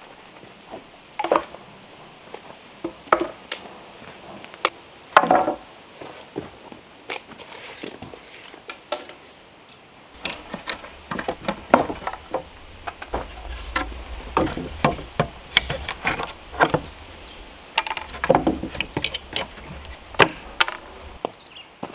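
Wooden boards knocked and set down on sawhorses, then a steel hammer striking nails into a board: a run of sharp knocks in the second half.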